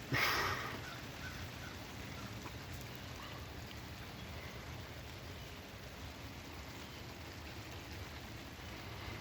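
Steady rain falling, an even hiss, with a brief louder rush of noise right at the start.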